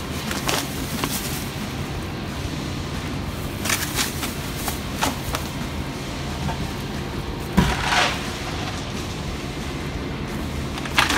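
Packaging being handled: an insulated bag and cardboard box rustling, crinkling and knocking in short bursts, loudest about eight seconds in, over a steady low hum.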